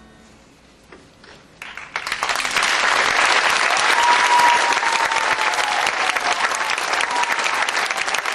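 Audience applause breaking out about two seconds in and continuing densely, with a drawn-out high tone rising over it midway.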